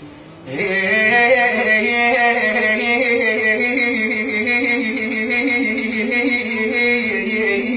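A singer holding a long, wavering vocal melisma without words in an Arabic song, starting about half a second in after a brief pause.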